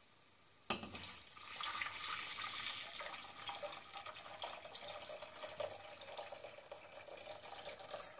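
Water being poured into a cooking pot onto fried tomato, a steady splashing pour that starts about a second in.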